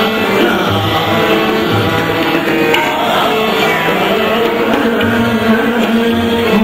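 Hindustani classical music in raag Puriya Kalyan: a gliding melodic line over a steady drone, with tabla strokes.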